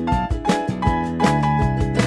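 Instrumental background music with a steady beat, about two strokes a second, under held melody notes.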